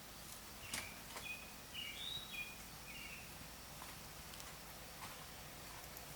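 Faint outdoor ambience with a bird giving a quick series of short chirps during the first three seconds, and a few faint clicks.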